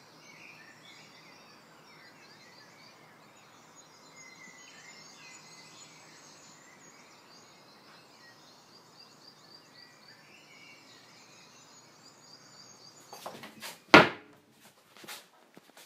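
Outdoor ambience of many small birds chirping over a steady background hiss, then a few clicks and a single loud thunk about fourteen seconds in, from a kitchen drawer or cupboard being handled.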